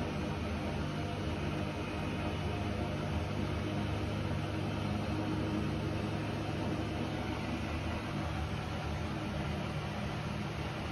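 Hotpoint Ariston AQ83D washing machine on its 800 rpm spin cycle, the drum and motor running with a steady hum.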